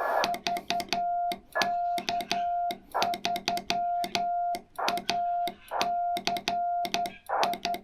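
Morse code on an amateur radio transceiver: a steady mid-pitched CW tone keyed in dots and dashes, with sharp clicks at many of the key-downs and key-ups. Patches of band hiss fill the gaps between characters, typical of a rig set to full break-in.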